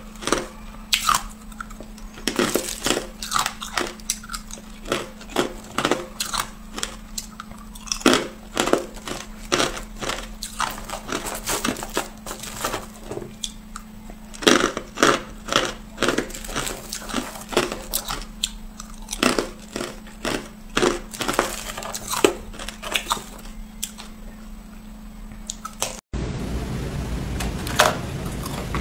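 Hard clear ice being bitten and chewed close to the microphone: a steady run of crisp crunches, one or two a second. Near the end the sound breaks off sharply and gives way to a denser, grittier crunching.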